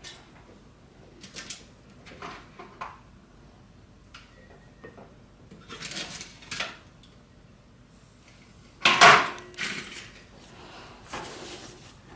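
Scattered clicks and clatters of small hand tools and parts being handled and set down, the loudest clatter about nine seconds in.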